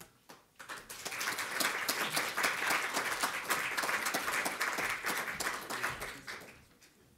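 Audience applauding. A few scattered claps come first, the applause builds within the first second, holds steady, and dies away about a second before the end.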